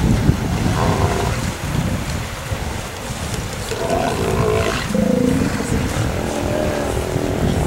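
Steller sea lions calling from a crowded haul-out: several drawn-out, pitched calls, one about a second in and more from about three seconds on, over a steady low rumble.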